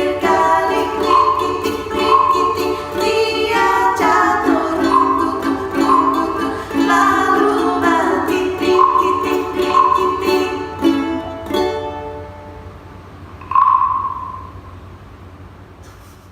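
Ukulele music playing to its close. The playing stops about twelve seconds in, a single high note rings out about a second and a half later and dies away, and the sound fades out.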